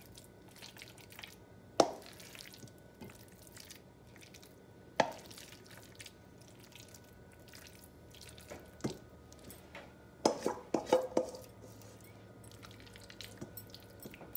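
A serving utensil clinking against a stainless steel mixing bowl and ceramic serving dish as potato salad is scraped out: single sharp clinks a few seconds apart, then a quick run of about five about ten seconds in.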